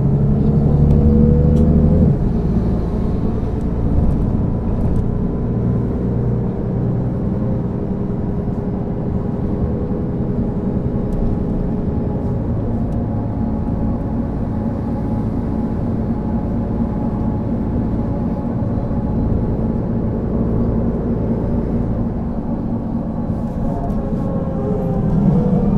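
Mercedes-Benz O 530 G Citaro articulated bus under way, its diesel engine and ZF automatic gearbox running. The engine note climbs for about two seconds, then drops abruptly and runs steady. It starts to climb again near the end.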